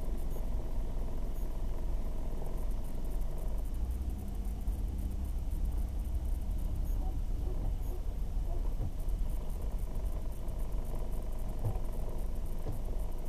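Car engine and tyre noise heard from inside the cabin while driving on a sealed road: a steady low rumble.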